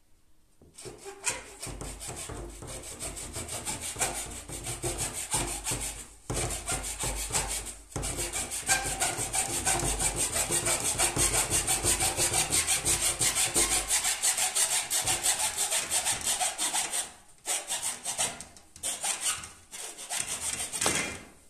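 Small hand hacksaw cutting through a plastic hose with a metal core, in rapid back-and-forth strokes broken by a few short pauses.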